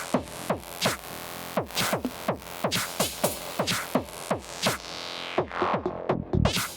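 Electronic dance music: a steady beat of quick, steeply falling synth sweeps, with heavy bass coming in near the end.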